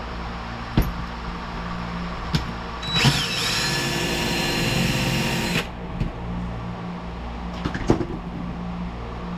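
Electric drill running for about two and a half seconds, a little after the start, drilling out a rivet in a steel vent-window frame, with a whine that dips and then climbs back. A few sharp knocks of metal parts being handled come before and after.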